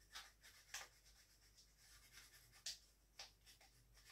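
Faint pencil scratching on tracing paper laid over the end of a hazel shaft as a circle is traced: a few short, separate strokes.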